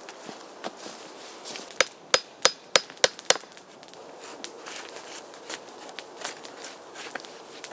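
About two seconds in, a quick run of six sharp knocks, about three a second, with a slight metallic ring. Then a knife blade shaving the bark off a green wooden stick makes lighter, irregular scrapes and clicks.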